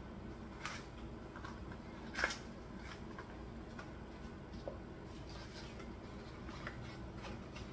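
A small cardboard box being opened and handled: a few light rustles and clicks of cardboard and packaging, the loudest about two seconds in, over a low steady hum.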